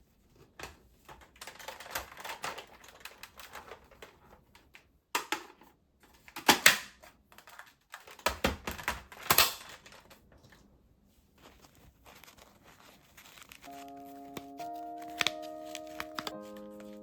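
Irregular rustling, crinkling and scraping handling noises in short bursts, then soft background music with held chords comes in near the end.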